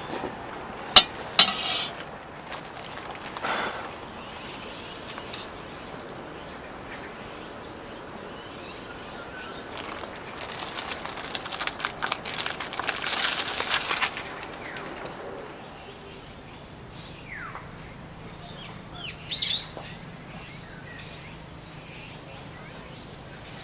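Outdoor ambience with a few sharp clicks near the start, a stretch of dense crackly rustling midway, and a bird chirping briefly near the end.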